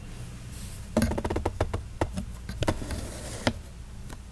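A quick, irregular run of sharp taps and knocks about a second in, some with a brief ring, lasting around two and a half seconds.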